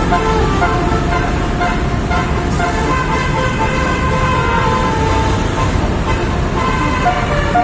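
Telolet bus horn: a multi-tone air horn playing a tune of short notes that step up and down in pitch, over the low rumble of the bus engine and road traffic.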